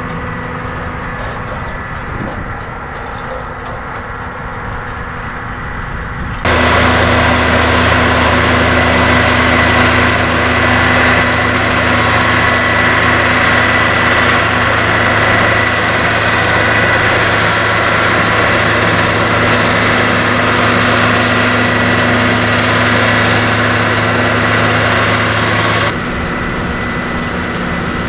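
Cat Challenger 55 tracked tractor's diesel engine running at a steady pace under load, with a steady whine over it. It is fainter and duller at first, comes in suddenly much louder and fuller about six seconds in, and drops back to the fainter sound near the end.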